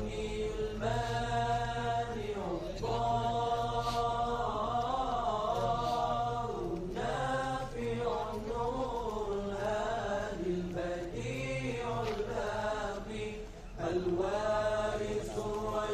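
A man's voice chanting an Arabic supplication (dua) in long, drawn-out melodic notes that rise and fall slowly in pitch, with a few short breaths between phrases.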